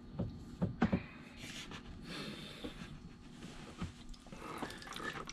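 Low steady hum of a small water-system pump running, with liquid trickling into a plastic bucket. A few sharp knocks from the hoses being handled come in the first second.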